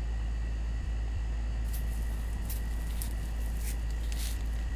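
Steady low hum with a faint high whine running under it, and a few soft rustles of script paper about halfway through and near the end.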